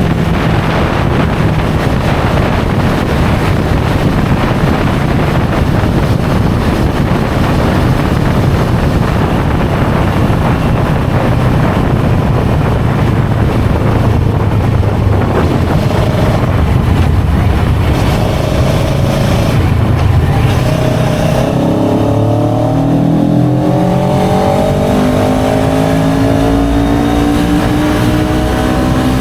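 CFMOTO 700CL-X Sport motorcycle's parallel-twin engine through its stock exhaust, running with a rough, steady note. About two-thirds of the way in, the revs start climbing steadily in pitch as it accelerates.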